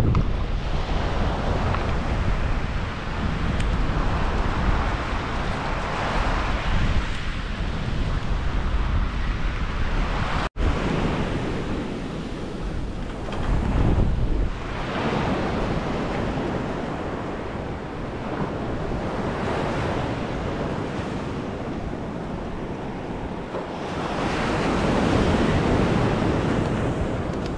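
Ocean surf washing onto a sandy beach, swelling and easing, with wind buffeting the microphone.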